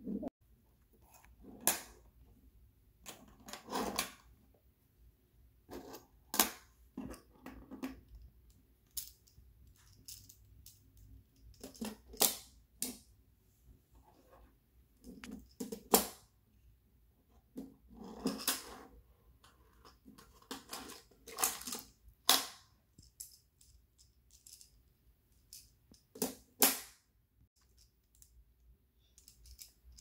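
Crenova magnetic plastic building tiles clicking and clacking as they are handled and snapped together, in irregular single clicks and short clusters, with a few sharper clacks.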